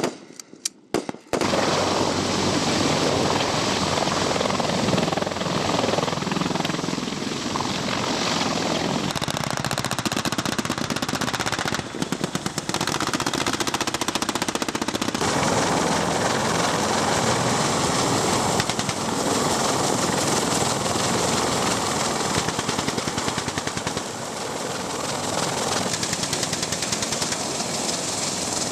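Small-arms fire on a live-fire range from M4 carbines and M249 light machine guns. A few separate shots come in the first second or so, then dense, continuous rifle and machine-gun fire that goes on without a break.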